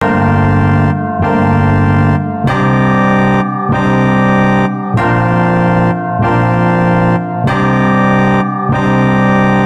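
Instrumental music: sustained organ-like keyboard chords, with a new chord about every second.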